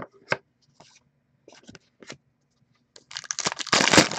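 A few light clicks of trading cards being handled, then, about three seconds in, a loud crinkling rip as a foil trading card pack is torn open.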